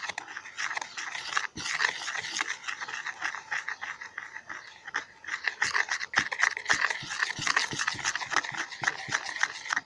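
Glue-and-activator slime mixture being stirred in a container: a fast, irregular run of wet clicking and squelching that stops abruptly near the end.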